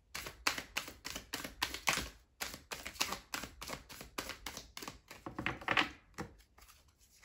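A deck of tarot cards being shuffled by hand: a quick run of card clicks and flutters, about three to four a second, with a short pause about two seconds in.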